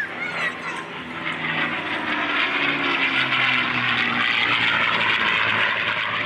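P-51 Mustang's Merlin V-12 engine making a high-speed low pass. The engine noise grows louder, and its pitch drops as the plane goes by.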